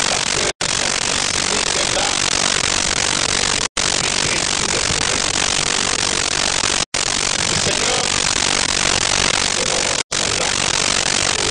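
Steady loud hiss like static, broken by brief total dropouts to silence about every three seconds.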